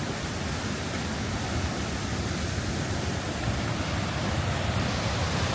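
Waterfall in full flow, a steady, loud rush of falling water that sounds pretty rough: it is running high after heavy rain.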